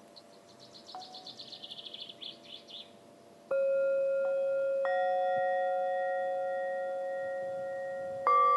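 Singing bowls struck one after another, each ringing on in a long, slowly fading tone; the first strike comes about three and a half seconds in, with two more after it. Before that there is a quick high tinkling trill.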